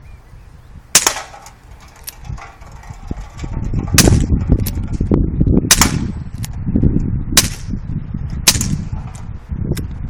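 Dan Wesson 8-inch 4.5 mm (.177) CO2-powered BB revolver fired five times: one sharp crack, then after a three-second gap four more about a second and a half apart.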